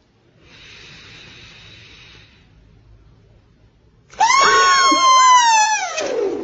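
A person snoring: a faint breathy inhale, then about four seconds in a loud, high, wailing, siren-like snore that slides slowly down in pitch and wavers near the end.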